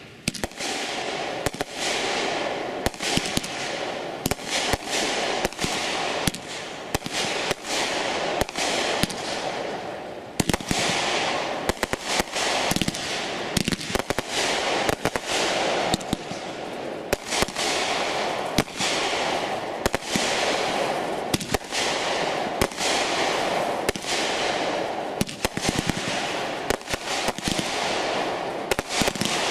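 World Class Fireworks 'True Art' 500-gram consumer fireworks cake firing a continuous barrage: sharp shots and bursts in quick succession, one or two a second, over a steady hiss and crackle from the breaking effects.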